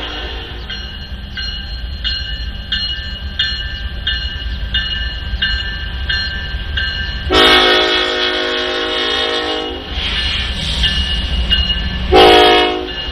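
Norfolk Southern freight train's locomotives rumbling past, with a bell dinging steadily about three strokes every two seconds. About seven seconds in, the lead locomotive's air horn sounds one long blast of about two and a half seconds, then a short loud blast near the end, the pattern sounded for a grade crossing.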